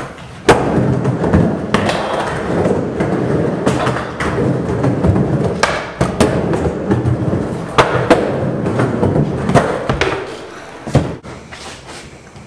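Skateboard wheels rolling back and forth on a wooden mini ramp, with a sharp clack every second or two as the board strikes the ramp and its coping. The rolling grows quieter near the end.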